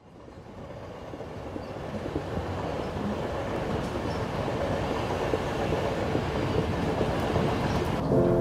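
A commuter train on the rails, its rumbling noise fading in from silence and growing steadily louder. About 8 seconds in, a sudden change brings in a steady hum of several held low tones.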